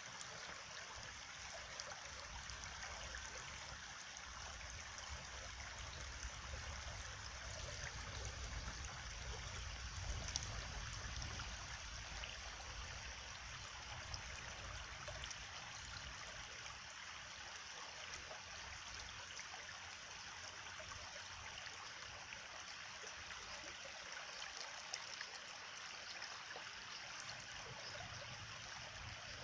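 Stream water flowing steadily, an even rushing that keeps up throughout.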